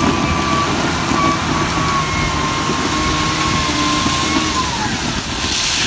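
LiuGong wheel loader's diesel engine running under load as the bucket digs into a pile of railway ballast stone, with a steady whine that falls in pitch about four and a half seconds in. A brief hiss near the end.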